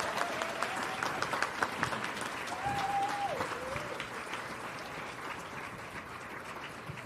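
An audience applauding, the clapping slowly dying away. A single short call, held and then falling in pitch, comes about three seconds in.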